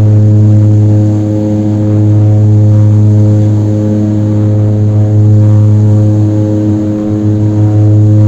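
Small propeller airliner's engines running at takeoff power, a loud steady drone with a deep, even hum.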